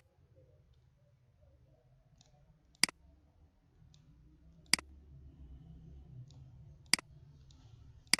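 Computer mouse clicking: single sharp clicks roughly every two seconds, with fainter clicks in between, over a faint low hum.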